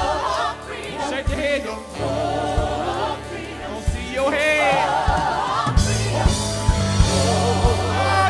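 Gospel choir singing wordless, melismatic lines over bass and drums, with vocal runs gliding up and down.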